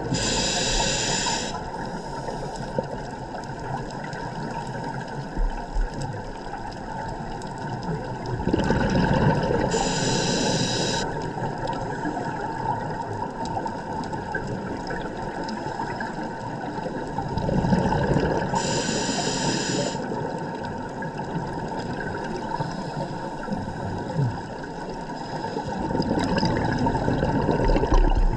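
Scuba regulator breathing heard underwater: a bubbling rush of exhaled air and a short hiss from the regulator, repeating about every nine seconds, three times, over a steady churn of water noise on the camera housing.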